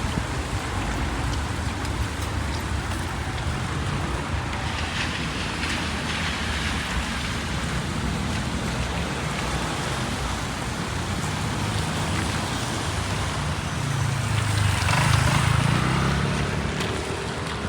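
Steady rain with road traffic going by; a vehicle engine passes close, loudest near the end.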